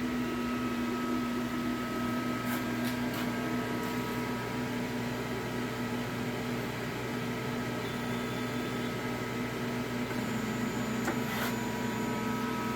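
Refinecolor CF60 DTF printer running just after power-on while it initializes: a steady hum of its absorption fan and heater with several held tones, and a few light clicks.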